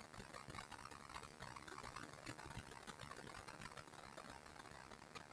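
Near silence: faint room noise with light, scattered ticks.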